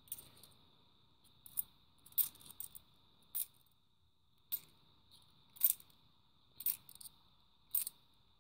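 50p coins clicking against each other as they are shuffled one by one in the hands: short, sharp clinks at irregular intervals, roughly one a second, over a faint steady high tone.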